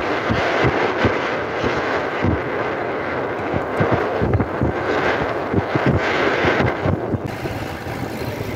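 Wind rushing and buffeting across the phone microphone as the open-top jeep drives along. About seven seconds in this gives way to a quieter, steadier vehicle rumble.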